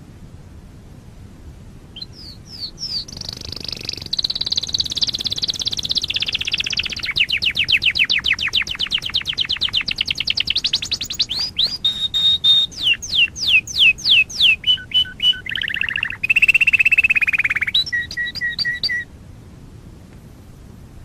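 Domestic canary singing one long unbroken song, starting about two seconds in and running for some seventeen seconds. It runs through rolling trills, rapid repeated chirps, slower falling whistles and brief held notes, and ends on a few short lower notes, over a steady faint hiss.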